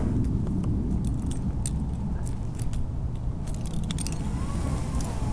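Metal climbing hardware (carabiners and a rope descender) clinking and jingling as the climbing rope is handled, a scatter of sharp clicks most frequent mid-way, over a steady low rumble.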